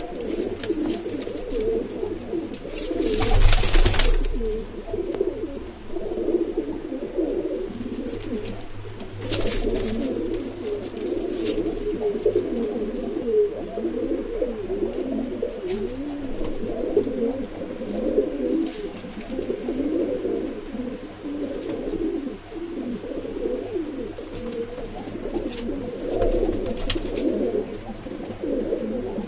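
Domestic pigeons cooing continuously, several voices overlapping, in a small enclosed loft. A louder scuffling noise comes about three seconds in, and a few shorter clicks follow later.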